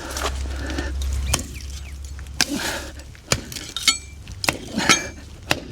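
A metal garden tool striking as yard debris is cleared: a series of sharp, irregular knocks and clinks, roughly one every half second to second, some with a short metallic ring.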